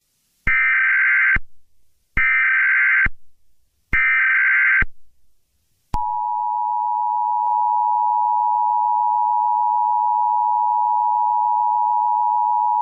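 Emergency Alert System SAME header: three bursts of digital data tones, each about a second long with a second's gap between them. About six seconds in comes the steady two-tone EAS attention signal, which warns that an emergency message is about to be read.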